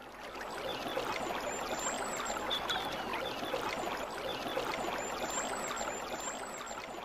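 Water running and trickling as a continuous haze of small ticks and splashes, fading in at the start and easing down near the end.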